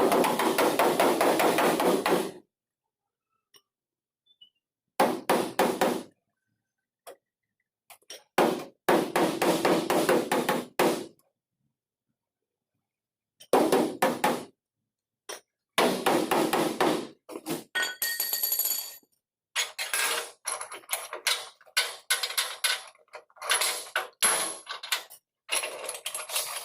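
Hammer rapidly tapping on sheet-metal body panels in several separate bursts, with abrupt dead silence between them. There is a brief metallic ringing partway through.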